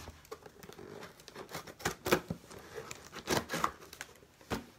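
A mailed box and its packaging being handled and opened: scattered rustles, scrapes and sharp clicks, with a few louder ones about two seconds and three and a half seconds in.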